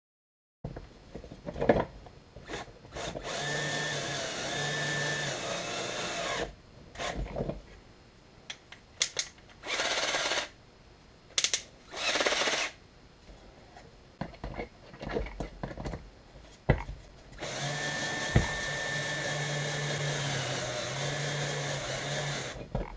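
Small cordless power screwdriver driving wood screws into a pine birdhouse kit. Its motor runs in two long stretches of about five seconds each at a steady pitch, with two brief spins in the middle and clicks of handling in between.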